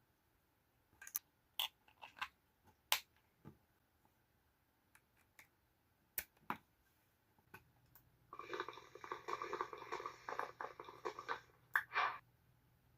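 Scattered sharp clicks from handling a wireless gaming mouse, then about three and a half seconds of dense, rapid clicking and rattling, and two more clicks near the end.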